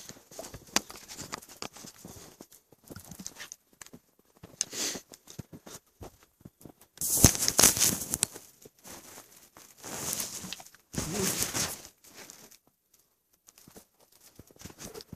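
Footsteps crunching in snow, with two longer, louder crunching stretches a little past the middle.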